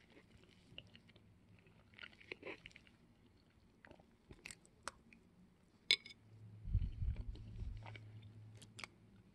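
A person chewing and eating mouthfuls of chocolate-chip cookie from a plate with a fork, with a few sharp clicks scattered through and a louder low thump a little after halfway.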